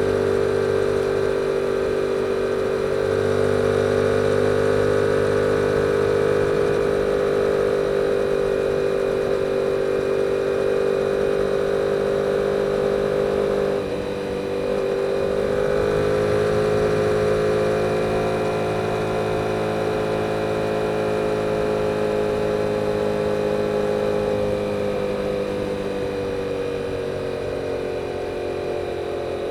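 2022 Yamaha R7's 689 cc parallel-twin engine through its stock exhaust, running steadily at cruising speed under way. About halfway through the note dips briefly at a gear change, then climbs a little and eases down near the end.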